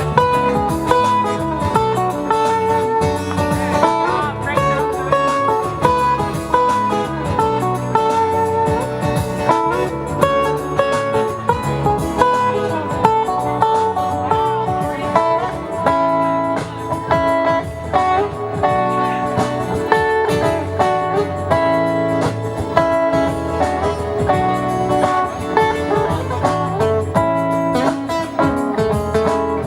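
Instrumental guitar music: a melody of plucked single notes over a lower accompaniment, playing steadily throughout.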